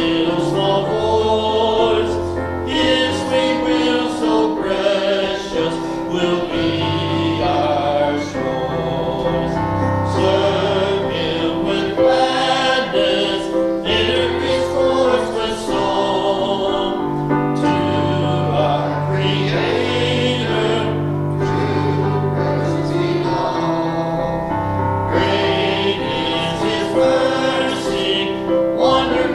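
A congregation sings a hymn in chorus over instrumental accompaniment, with steady held notes and a continuous bass line.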